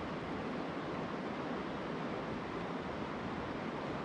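Steady rushing of a river's flowing water, an even hiss without breaks.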